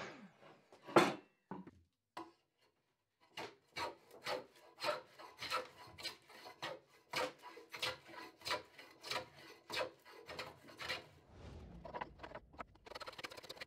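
Hand plane shaving a warped board in quick repeated strokes, about two a second, each a rasping scrape of the blade on wood. A single loud knock comes about a second in.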